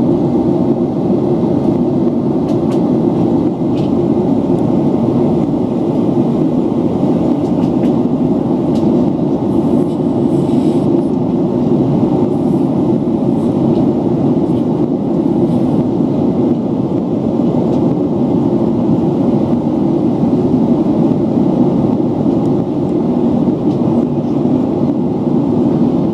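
Steady low roar of jet engines and rushing airflow, heard from inside an airliner cabin in flight.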